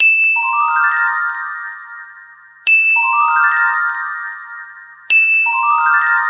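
Glockenspiel-like chime jingle: a single high ding, then a quick rising run of bell notes that ring on and fade. The figure repeats three times, about every two and a half seconds.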